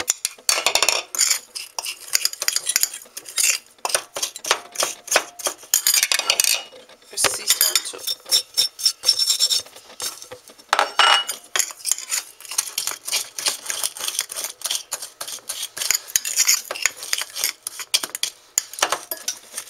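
A spoon stirring and scraping a dry spice mix of brown sugar, cinnamon and grated orange peel in a bowl, with rapid, repeated clinks and scrapes against the bowl. The brown sugar has gone hard, and the spoon is working through its clumps.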